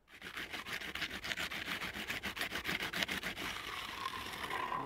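Hand trowel rubbing and scraping over wet concrete in quick, even strokes, about nine or ten a second.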